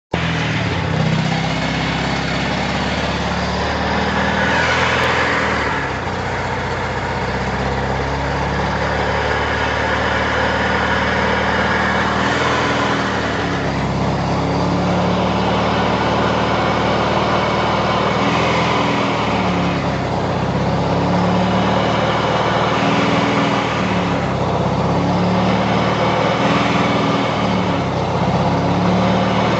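1993 Mazda RX-7's twin-turbo 13B rotary engine, its revs rising and falling several times. Each rise in revs brings a turbo whine that climbs in pitch.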